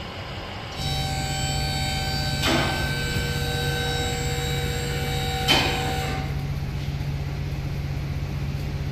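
Steady machine hum in a tire shop bay, starting about a second in, with two short sharp clanks about three seconds apart.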